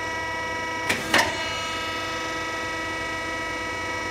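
Soap stamping machine giving off a steady electrical whine, with two sharp clicks about a second in, a quarter second apart, while the mold is being fitted under the lowering cylinder.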